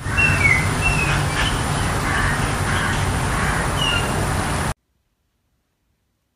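Outdoor background noise with a steady low rumble and a few short, high bird chirps; it cuts off suddenly about three-quarters of the way through, leaving silence.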